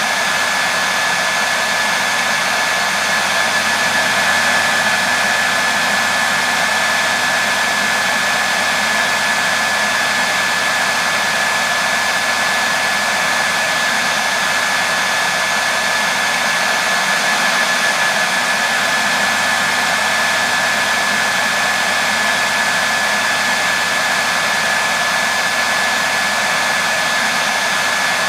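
Hair dryer running continuously: a steady rush of airflow with a constant high whine from its motor and fan.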